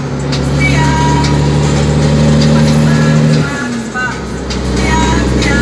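Cummins N14 inline-six diesel truck engine running under way, heard from inside the cab. Its note holds steady, then drops about three and a half seconds in.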